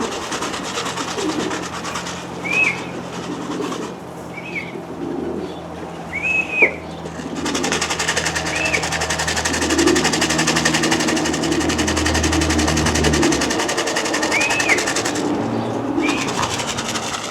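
Racing pigeons cooing at the loft, with short high chirps every second or two over a steady low hum; a broad rushing noise comes in about seven seconds in.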